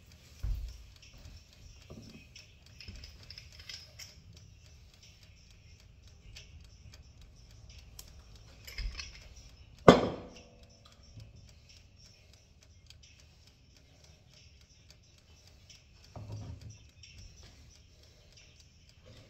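Small hand-handling taps and clicks of kitchen food preparation. About halfway through, one sharp clunk of a hard object knocking down rings briefly, and a softer knock follows later.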